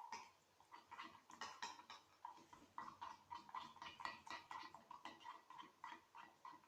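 Spoon stirring sticky borax slime in a glass: faint, quick, wet clicks and smacks, several a second.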